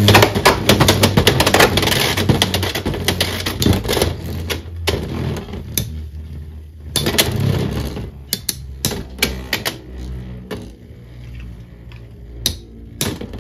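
Two Beyblade X spinning tops, a metal-bladed Dranzer S and Wizard Arrow, whirring in a plastic stadium and clattering against each other in rapid, dense collisions for the first few seconds. After that they knock together only now and then.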